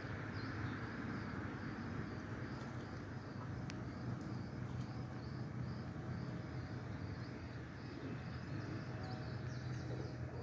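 Steady low outdoor rumble with a small bird chirping over and over, about two chirps a second.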